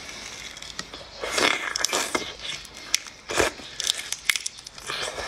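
Close-up eating sounds of a large sauce-coated shrimp being bitten and sucked on: wet slurps and irregular small crackly bites, the loudest slurps about a second and a half and three and a half seconds in.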